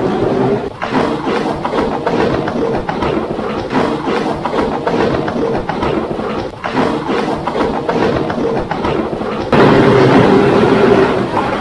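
A rider's tube rushing down a water slide: a loud, steady rumble of running water and rattling knocks. It suddenly gets louder about nine and a half seconds in.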